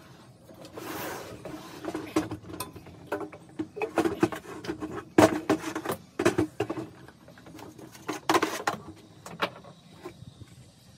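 Irregular knocks, clunks and rattles as a small portable air compressor's metal frame is handled and turned around on a table and a wooden block is shifted. The sharpest knock comes a little past the middle. The compressor is not running.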